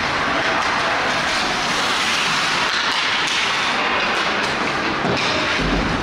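Ice hockey game sound: skate blades scraping and carving on the ice over a steady rink hiss, with a few sharp clicks of sticks on the puck. A low thud near the end.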